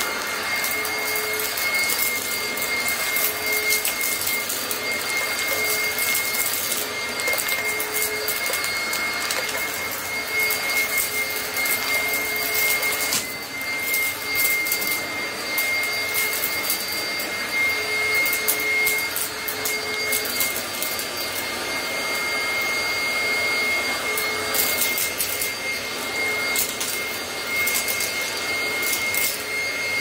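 Oreck XL Commercial upright vacuum cleaner running on carpet: a steady motor whine with scattered crackles.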